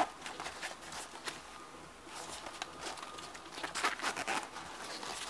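Hands handling a nylon Case Logic DCB-303K camera bag: fabric rustling and small clicks from zipper pulls and strap hardware, with a longer scratchy stretch around four seconds in as a pocket zipper is worked.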